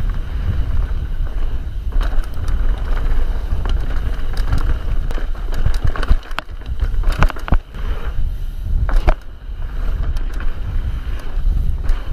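Mountain bike riding fast on a dirt trail: wind buffeting the microphone over tyre noise, with the bike rattling and clattering over bumps several times midway.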